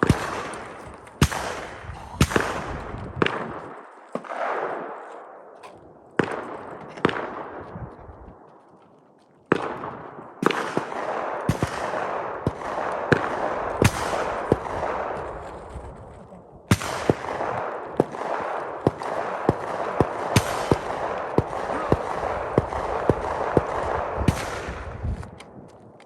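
Gunfire at target practice. A few single shots about a second apart come first, then two long strings of quick shots, each shot trailing a ringing echo.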